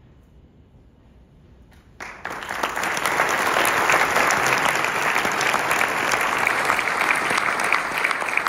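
About two seconds of quiet room tone, then an audience suddenly breaks into applause, many hands clapping steadily for the rest of the time.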